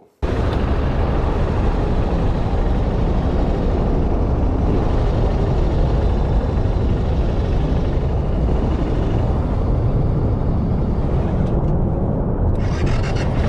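Riding noise from a moving motorcycle, the BMW F650 GS Dakar: wind rushing over the microphone with a heavy steady rumble. It starts abruptly and continues without change.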